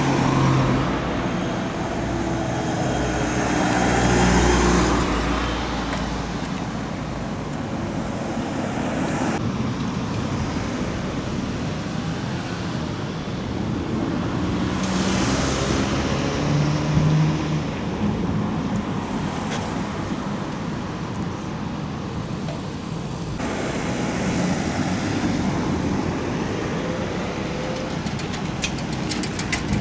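Road traffic: cars passing one after another over a steady traffic hum, each swelling and fading as it goes by, loudest about four seconds in and again around fifteen to seventeen seconds. A short run of quick clicks near the end.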